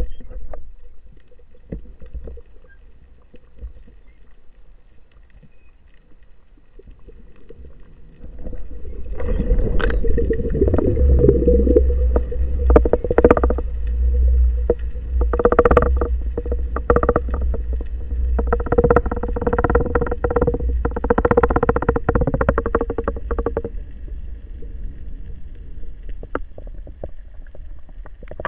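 Underwater sound of water rumbling past the camera during a dive, with a steady mechanical hum like a boat's motor carried through the water. The hum grows louder about eight seconds in and fades a few seconds before the end, with scattered clicks throughout.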